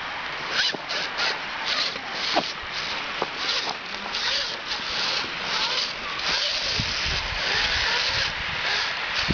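Radio-controlled rock crawler's electric motor and gearbox whirring in short bursts as the throttle is blipped on and off, then running longer near the end as it climbs over rock.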